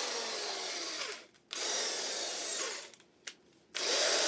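Bosch GSB 16 RE corded impact drill's motor running at speed in on-off test bursts: it winds down and stops about a second in, runs again, winds down near three seconds, gives a brief blip, then spins back up near the end. The drill works normally again after a broken power-cord wire was reconnected in its plug.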